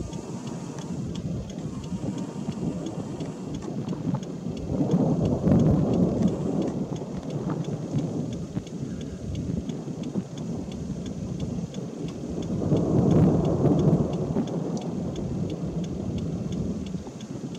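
Thunderstorm noise: a steady rush, with low rumbling thunder swelling up twice, about five and again about thirteen seconds in.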